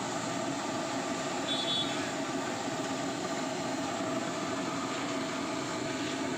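Jalebi frying in a wide pan of hot oil: a steady sizzle of bubbling oil around the batter coils.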